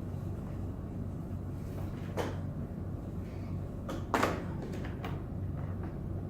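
Plastic clicks and knocks as the Hoover Rogue 970 robot vacuum is opened up to get at its dustbin. There are two sharp clicks about two and four seconds in, the second the louder, then a few lighter ticks, over a low steady hum.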